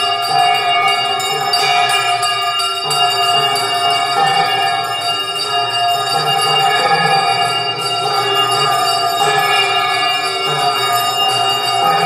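Temple bells ringing in a continuous, dense peal of many overlapping tones during an aarti (lamp offering), with music mixed in.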